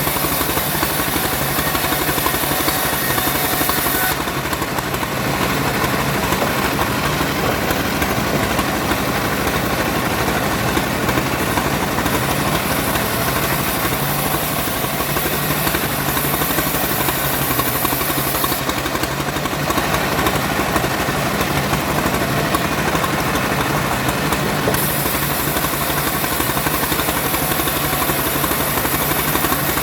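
Engine-driven wood saw running steadily, with a high hiss that cuts out twice, from about 4 s to 12 s and again from about 18 s to 25 s.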